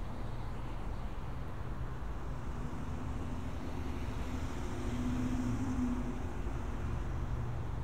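Street traffic rumbling steadily, with a passing vehicle's engine hum that swells about halfway through and fades near the end.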